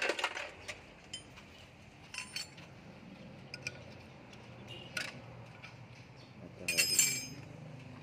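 Metal hand tools and engine parts clinking and tapping against each other: scattered single clinks, then a longer metallic rattle with a ringing note about seven seconds in.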